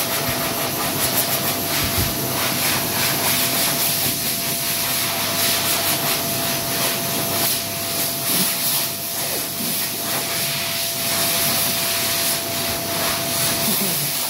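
PHS Airstream Vitesse hand dryer blowing at full speed with a hand under it: a loud, steady rush of air over a constant motor whine.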